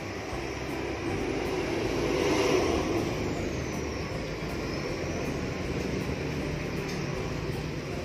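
Engine noise of a passing vehicle swells to a peak about two and a half seconds in and then slowly fades, with a faint high whine that dips and rises in pitch.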